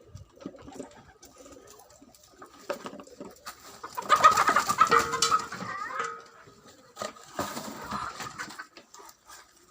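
Chickens clucking, with a loud run of calls about four seconds in and another shorter one near the end.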